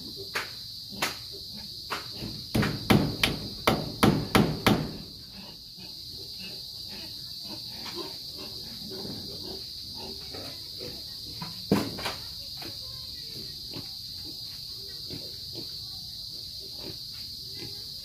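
Hammering on wooden tree-branch posts: a few separate knocks, then a quick run of about ten strikes, then quiet work with one more knock about two-thirds of the way through. A steady high insect buzz runs underneath.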